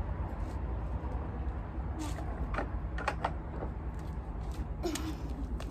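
Plastic vacuum-cleaner parts being handled, giving a few short clicks and knocks with a brief creak, over a low steady rumble.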